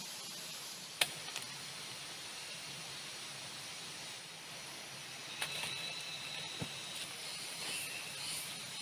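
Steady rain falling, an even hiss, with a sharp click about a second in and a few more clicks in the second half.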